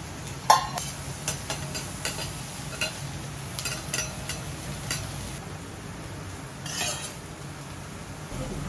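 Two metal okonomiyaki spatulas clacking and scraping on a steel teppan griddle as squid and tempura bits are chopped and turned, in irregular strokes about once a second; the sharpest clack comes about half a second in and a longer scrape near the end. A steady low hum runs underneath.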